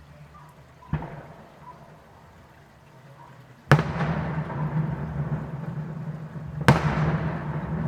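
Aerial fireworks exploding: a lighter bang about a second in, then two loud bursts about three seconds apart, each followed by a noisy tail that lasts until the next one.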